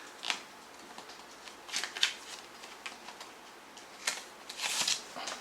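A plastic CD jewel case and its paper insert being handled and opened: a few short clicks and rustles, with a sharp click about four seconds in and a longer rustle just after it.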